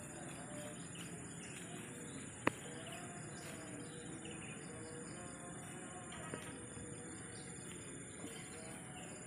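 Steady high-pitched chirring of insects with scattered short bird chirps, and one sharp click about two and a half seconds in.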